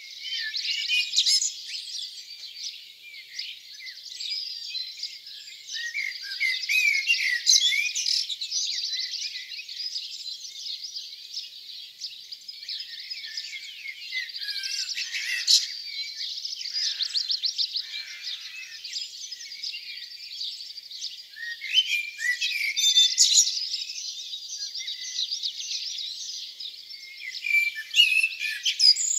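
Dawn chorus: many songbirds singing at once, their short notes and phrases overlapping densely.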